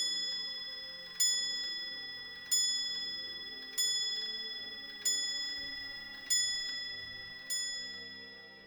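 The restored 18th-century Porthouse Clock striking the hour on its bell, seven evenly spaced ringing strokes about a second and a quarter apart, each left to ring and fade before the next.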